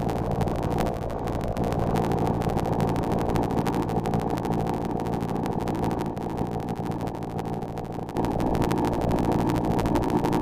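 Harsh, distorted static-like noise from a homemade fake EAS alarm, muffled, with nothing above a middling pitch. It runs without a break and gets louder about eight seconds in.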